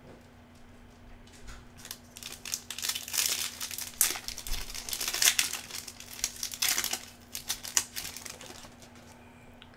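Foil wrapper of a Bowman Chrome baseball card pack crinkling and tearing as it is ripped open by hand. The crackling starts about a second and a half in and dies away near the end.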